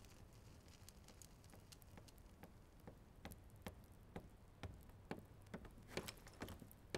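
Faint footsteps on a hard floor, a quiet tapping about two steps a second that starts about halfway in and grows a little louder. Before it there are only faint scattered ticks.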